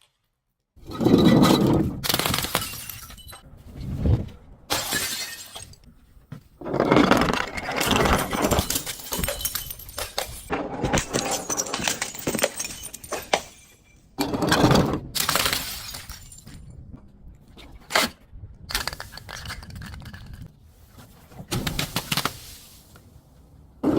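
Glass bottles being smashed and crushed: a series of loud crashes, each trailing off into crunching and clinking shards, one every second or few.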